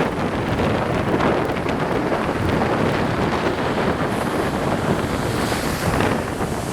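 Strong wind buffeting the microphone in a loud, steady rumble, with waves breaking on the shore beneath it and a brighter hiss of surf from about four seconds in.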